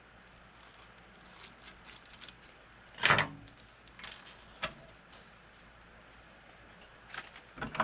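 Small metal rivets clinking and rattling as they are handled, with a louder clatter about three seconds in.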